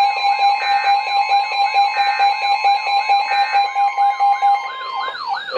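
Emergency Alert System attention signal: a steady two-tone alarm, overlaid with an electronic siren tone rising and falling rapidly, about three sweeps a second. Near the end the steady tones cut off and a wavering higher tone takes over.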